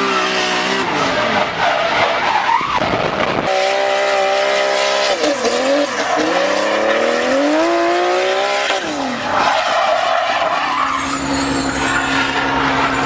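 BMW E30 drift car's engine revving hard, the revs climbing and dropping several times, with tyres squealing as the car slides sideways. Near the end the engine holds a steady note.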